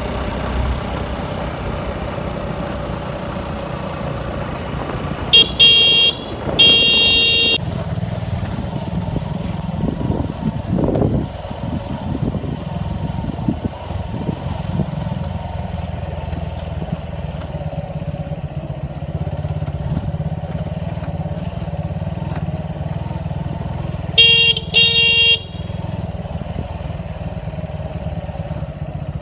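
Motorcycle engine running steadily on the move, with a horn honking a few short blasts about six seconds in and twice more near the end.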